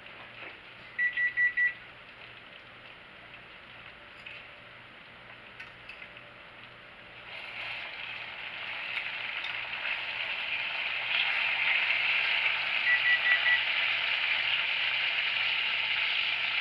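Hot chicken drippings sizzling in a stainless steel roasting pan as a whole roast chicken is turned in it, the sizzle growing louder from about seven seconds in. Four quick electronic beeps at one pitch sound about a second in, and four fainter ones come again near the end.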